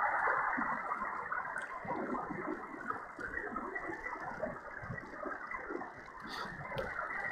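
Malachite DSP software-defined receiver in USB mode on the 28 MHz band, putting out band noise: a rough hiss cut off sharply above about 2 kHz by the receiver's filter, growing somewhat quieter over the first few seconds. The operator takes the noise for interference from local TV towers.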